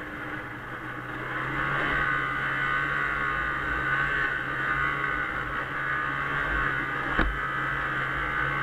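1996 Arctic Cat Bearcat 340 snowmobile's two-stroke engine running steadily as the sled travels along a trail, with one sharp click about seven seconds in.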